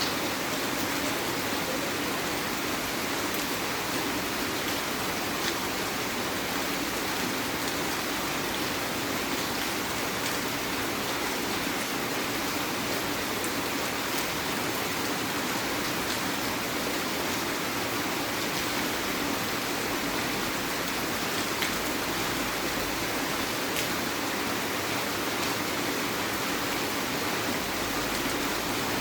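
Heavy rain falling steadily: a dense, even hiss with a few sharper drop ticks scattered through it.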